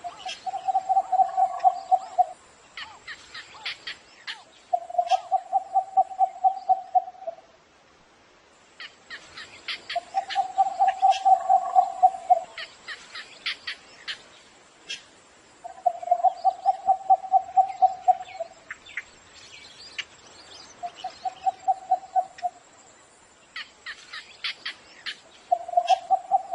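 Cinnamon bittern calling: low, rapid runs of knocking notes, each run about two seconds long and repeated about every five seconds, with sharper, higher clicking notes in between.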